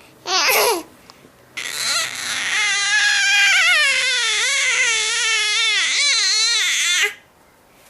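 A short falling cry, then a long, harsh, wavering cry lasting about five seconds that stops abruptly.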